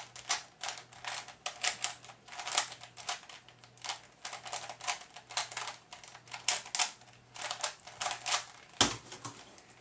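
A Type A 3x3 speed cube being turned fast: quick plastic clicking and clacking of the layer turns, several a second and uneven. Near the end there is one louder thump.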